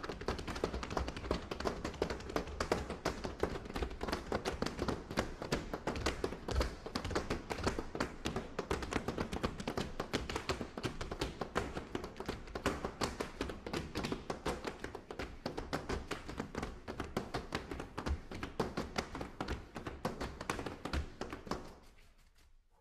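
Push brooms swept and struck rhythmically on a stage floor by a group of percussionists: a dense run of quick taps and scrapes that fades out near the end.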